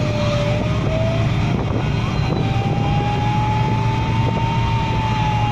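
Fire engine siren wailing in a slow rise and fall, breaking off for about a second near the start before coming back higher, over a steady low rumble of engine and road noise.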